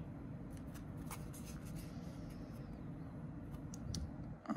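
Faint handling of baseball trading cards: card stock sliding and ticking softly as the cards are flipped through by hand, over a low steady hum.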